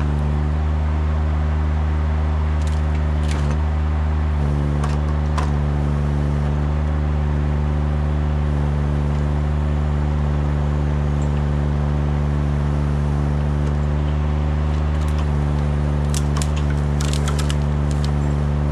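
Engine of a Kranman Bison 11 000 forwarder running at a steady speed, powering the crane and its Jobo ST35 harvester head as they reach out to a tree. Scattered sharp clicks sound over it, with a quick cluster of them near the end.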